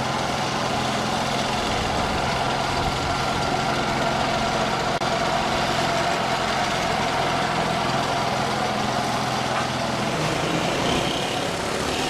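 A large engine, such as a truck's, running steadily at an even speed.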